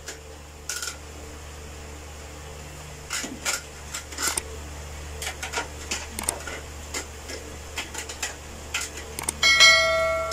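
Irregular clicks and taps of a computer keyboard and mouse being worked, over a steady low hum. About a second before the end, a short ringing tone with several pitches sounds, the loudest thing heard.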